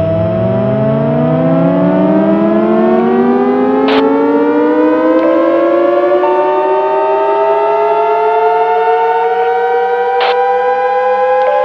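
Emergency alert siren winding up, its pitch rising slowly over about ten seconds. Steady alarm tones come in and out over it, with a couple of sharp clicks.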